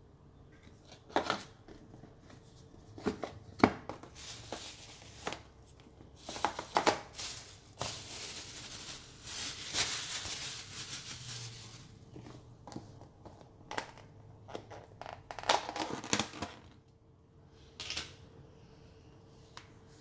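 A paperboard takeaway box and a plastic food container being handled and opened: scattered clicks, scrapes and rustles, with a longer stretch of steady rustling in the middle.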